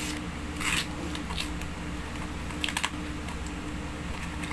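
Hands tearing and crumpling the paper-and-cardboard wrapping of an Amazon shipping parcel: a few short rustles and rips, the loudest one under a second in, over a steady low hum.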